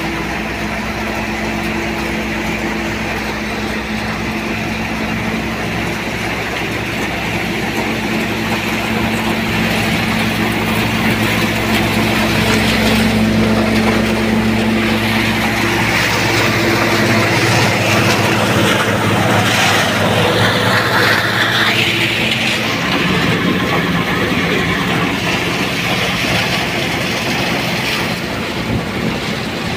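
Tractor-driven Punni crop thresher running steadily, a loud mechanical drone with a steady engine hum underneath that changes tone about three-quarters of the way through.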